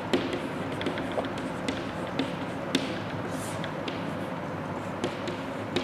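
Chalk tapping on a blackboard as numbers are written: a string of short, sharp, irregularly spaced taps over a steady faint room hiss.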